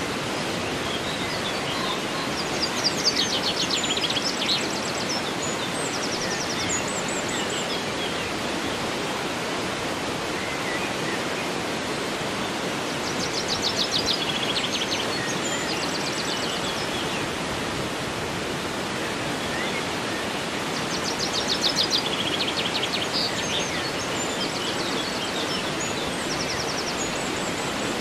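River water rushing steadily, with a waterfall in the distance. A songbird sings a quick, rapid trill three times, about a quarter, halfway and three quarters of the way through.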